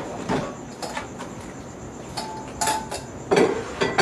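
Kitchenware clattering as a strainer and bowls are handled for straining a sauce: a run of irregular knocks and clinks, one or two leaving a brief ring.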